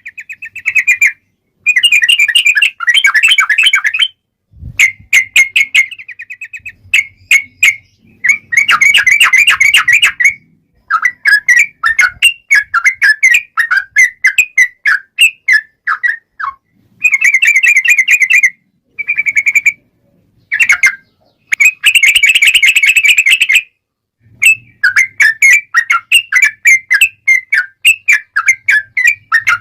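Yellow-vented bulbul singing long runs of rapid chattering notes, in loud bursts of a few seconds broken by short pauses.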